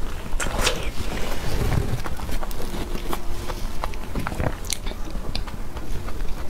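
Close-miked mouth sounds of someone biting and chewing soft, creamy durian flesh, with many small wet clicks and smacks.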